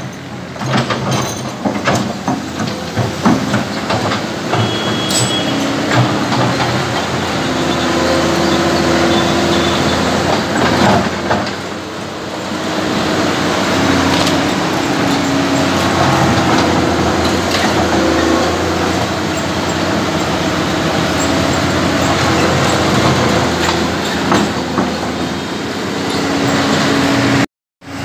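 Kobelco hydraulic crawler excavator working: its diesel engine runs steadily under load, its note stepping up and down as the hydraulics work, while the steel bucket scrapes and knocks against broken concrete and rubble, with scattered clatters of falling chunks.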